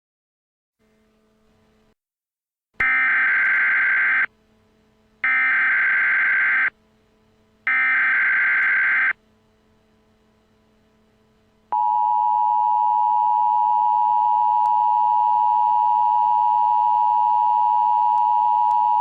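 Emergency Alert System tones: three short bursts of the screeching SAME digital header, each about a second and a half long with a second's gap between them, then about twelve seconds in the steady two-tone EAS attention signal begins and holds.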